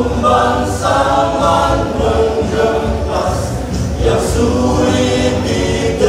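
A choir singing.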